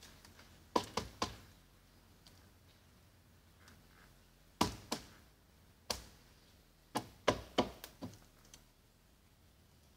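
Sharp taps and knocks in small clusters, about a dozen in all, from hands working on a car door panel.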